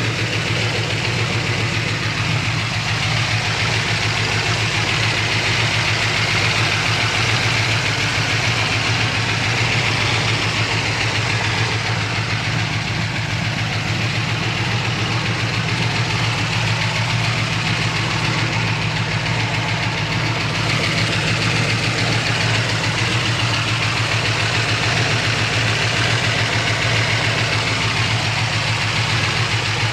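A 1963 Chevrolet C-10's 350 V8, fitted with headers and dual exhaust, idling steadily, with a slight lifter noise from the driver's side.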